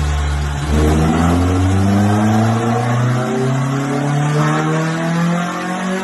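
Honda K24A2 2.4-litre inline-four in a Civic, revving up steadily under load on a dyno, its pitch climbing smoothly from about a second in.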